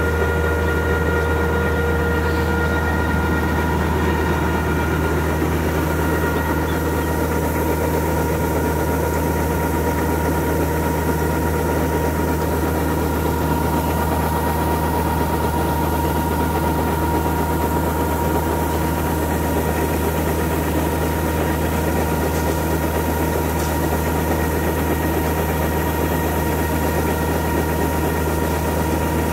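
Combine harvester and tractor diesel engines running steadily while the harvester unloads rice paddy through its auger: a constant low drone with a few steady higher whines above it.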